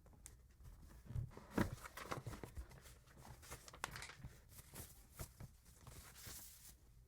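Hand-handling noise: irregular knocks and clicks mixed with a crinkling, tearing rustle. The loudest knocks come about a second and a half in, and there is a hissing rustle near the end.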